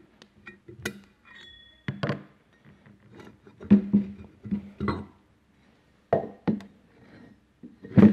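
Metal clinks and clanks as a pump impeller is levered off its shaft with a screwdriver, then lifted off and set down on a workbench, with a brief ringing tone about a second and a half in. The loudest clanks come about four seconds in and at the end.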